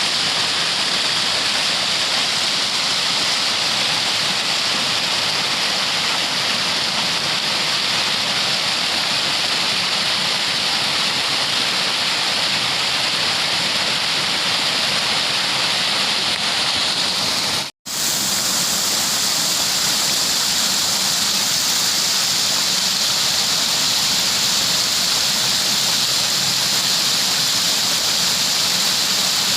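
Steady rush of flowing water, like a waterfall or fast stream. It drops out for an instant about 18 seconds in and comes back hissier.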